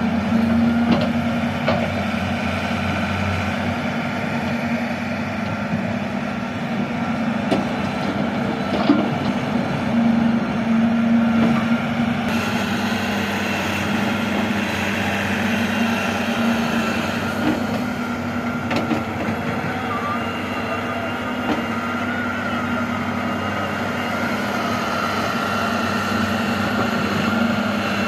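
Diesel engines of a wheeled excavator and a farm tractor running steadily while the excavator loads soil into a tractor trolley, with a few sharp knocks, the loudest about nine seconds in.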